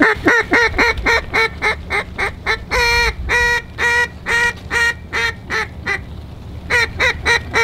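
Duck call blown in a series of quacks, about three to four a second, with one longer drawn-out quack about three seconds in, a short pause, then a quicker run near the end. It is calling to ducks passing overhead to turn them toward the decoys.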